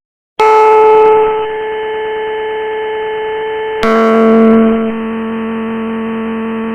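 Emergency alert alarm tone: a loud, ringing chord of steady pitched tones, struck twice about three and a half seconds apart, each strike bright at first and then holding as a steady drone.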